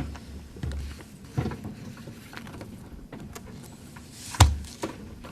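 Courtroom movement noise as people rise and the jury files in: shuffling, footsteps and chair or bench bumps, with scattered knocks and deep thumps, the loudest about four and a half seconds in.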